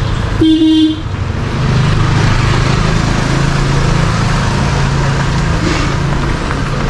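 Busy street traffic with motor vehicles running. A vehicle horn honks once, briefly, about half a second in, and is the loudest sound.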